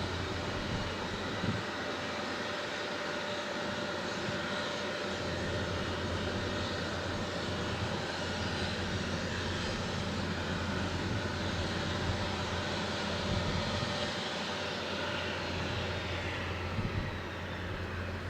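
An Airbus EC155B1 helicopter's twin turboshaft engines and rotor running steadily, with a whine over a deep rotor hum. Near the end a high whine falls in pitch and the sound eases a little.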